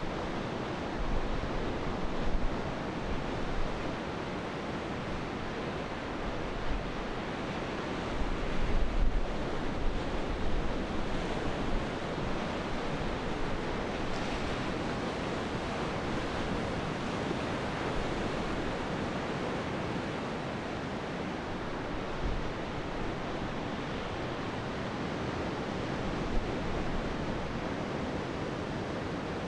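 Choppy sea and surf washing steadily, with wind buffeting the microphone in gusts, strongest about nine seconds in.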